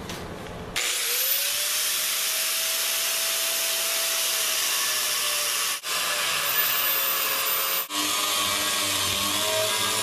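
Angle grinder cutting into a steel plow part, a loud steady grinding hiss. The motor's tone rises as it spins up about a second in, and the sound breaks off briefly twice.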